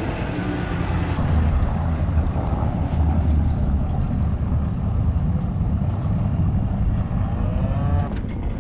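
Engine of a snowplow vehicle running steadily with a low rumble while plowing snow.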